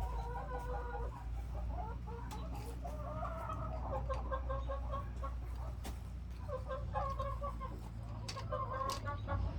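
Hens clucking in a run of pitched calls that come in several bouts, over a low steady hum.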